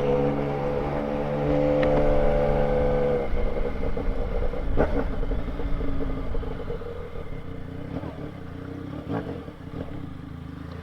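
Motorcycle engine running at a steady pitch; about three seconds in the steady note drops away, leaving rougher, lower running that fades toward the end.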